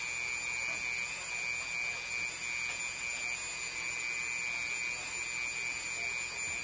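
Handheld Dremel rotary tool running at constant speed with a steady whine, its bit worked against the blade of an old pocket knife to clean it.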